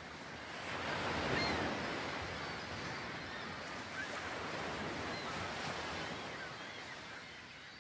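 Ocean surf washing onto a beach, a steady rushing that swells up over the first second and slowly fades away near the end.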